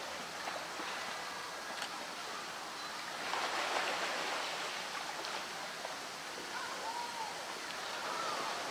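Water splashing and sloshing in a pool as a polar bear swims, with a louder burst of splashing about three seconds in as it thrashes and dives under.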